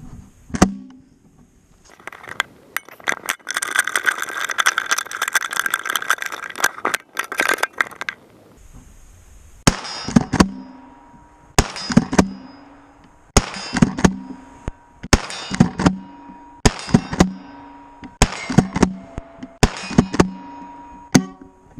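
Several seconds of rustling and clicking handling noise. Then, from about ten seconds in, a Kel-Tec KSG pump-action 12-gauge shotgun fires Aguila slugs about seven times, roughly 1.7 seconds apart. A second, sharper clack follows each shot, the pump being worked.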